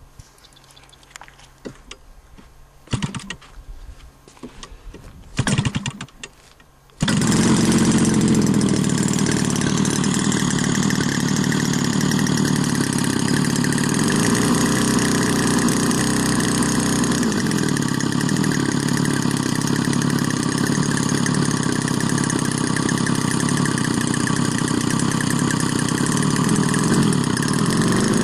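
50 cc two-stroke gasoline engine of a radio-controlled Ultimate aerobatic biplane being started: two brief bursts, then it catches about seven seconds in and runs steadily.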